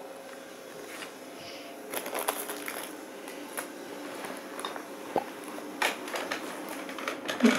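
Handling noise from a hand-held phone camera being carried and moved: irregular rustling and soft knocks, growing busier about two seconds in, with the sharpest knock near the end.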